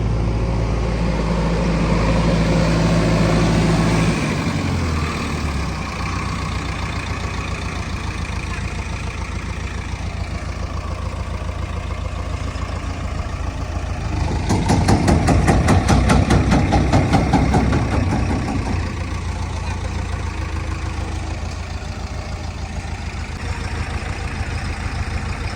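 JCB 3DX backhoe loader's diesel engine running. Its revs drop about four seconds in, then rise to a louder, faster-pulsing run for several seconds around the middle as it works.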